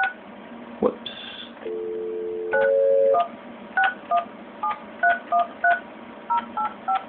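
Desk phone keypad tones as a number is dialed: about a dozen short dual-tone beeps in quick, uneven succession. A sharp click about a second in is followed by a brief high beep and a short stretch of dial tone before the rest of the digits.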